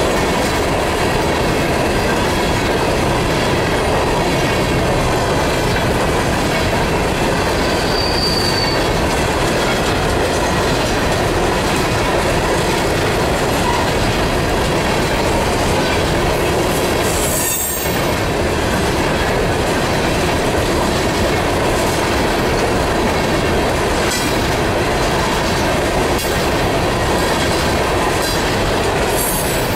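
Coal train's hopper cars rolling past close by at speed: a loud, steady rumble and rattle of steel wheels on the rail joints, with a brief high wheel squeal about eight seconds in.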